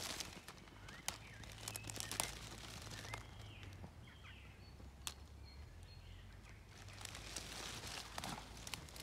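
Faint rustling of wet leaves and undergrowth, with a few sharp twig cracks, as someone crouches and moves through forest brush. Faint short bird chirps come in around the middle.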